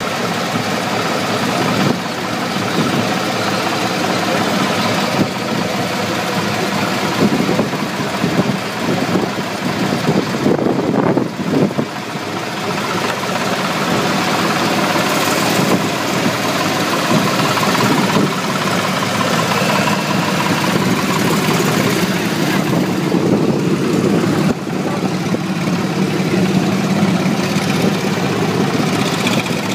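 Engine of an early vintage racing car running steadily at idle, with the sound rougher and more uneven for a few seconds near the middle.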